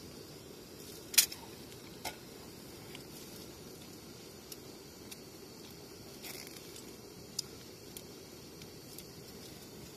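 Scattered small clicks and rustles of someone eating and handling things at close range, with one much sharper click about a second in, over a steady low rumble.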